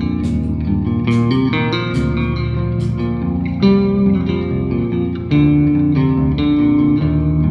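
Squier Bass VI, a six-string electric bass tuned like a guitar an octave down, played with a pick and capoed near the nut: a picked single-note melodic line, with some notes left ringing and louder accented notes about three and a half and five seconds in.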